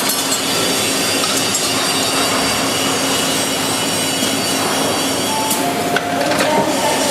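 Onodani TPM-30 tire packing machine running with a steady, loud mechanical noise. Thin tones ride over it, and from about five seconds in several of them shift in pitch, with a few sharp clicks.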